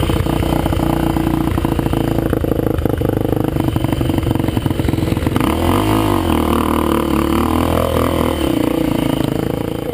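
Trail motorcycle engine running hard, its pitch rising and falling with the throttle for a few seconds about halfway through.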